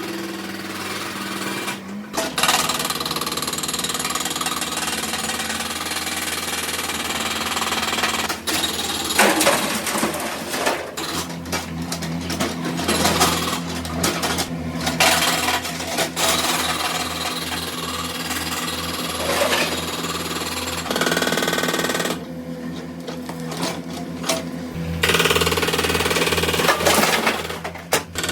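Hydraulic breaker hammering rapidly and continuously, with a heavy machine's engine running steadily beneath it. It starts about two seconds in, drops out for a few seconds about three-quarters of the way through leaving just the engine, then hammers again and stops near the end.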